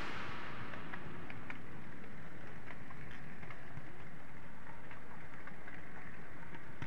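Model train running along its track, heard from a camera riding on board: a steady rolling rumble and hiss with faint irregular clicks.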